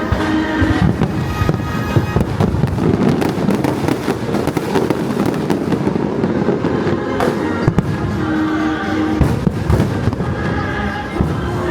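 Fireworks going off in quick succession, many bangs and crackles overlapping, over the fireworks show's music.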